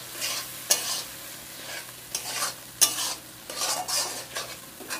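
Metal spatula scraping and stirring thick masala paste with tomatoes frying in oil in a metal kadhai: the bhuno stage of the curry base. Irregular scraping strokes come about once a second over a low sizzle, with one sharper clack of spatula on pan about halfway through.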